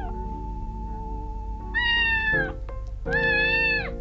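Young kitten meowing twice, two short high-pitched cries that drop in pitch as they end, about two seconds in and again a second later, over soft background music.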